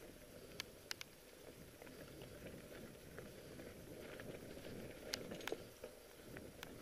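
Mountain bike rolling along a stony dirt trail: a faint, steady low crunching of the tyres on gravel, with sharp rattling clicks from the bike over stones, a few about half a second to a second in and a cluster about five seconds in.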